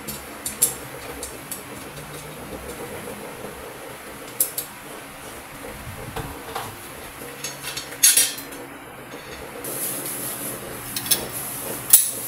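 Metal towel-rack tubes being handled and fitted together by hand: light scrapes and several sharp metallic clicks and clinks, spaced a few seconds apart, as the tube ends are pushed into their joints.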